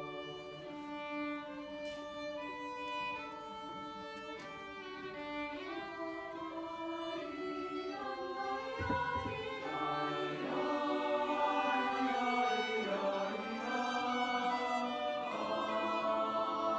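Solo violin playing a slow melody with the choir, the sound growing fuller and louder from about halfway through.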